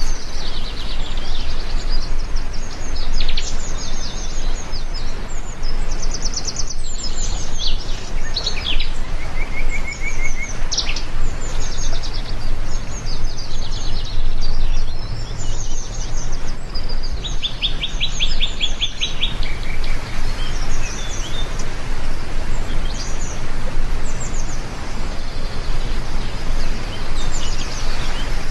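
Heavy rain falling steadily, with many birds chirping over it, some in quick rapid trills.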